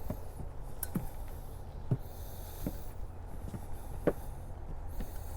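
Careful footsteps on a wooden boardwalk, a short knock at each step about once a second, over a low steady rumble.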